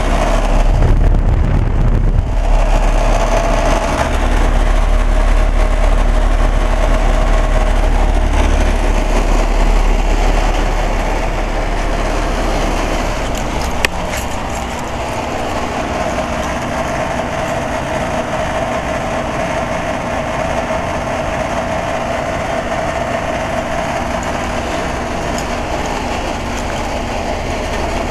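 2011 Broan-Nordyne 3-ton heat pump outdoor unit running, its compressor and fan giving a steady low hum with a steady mid-pitched tone over a whoosh of air. A single sharp click comes about halfway through.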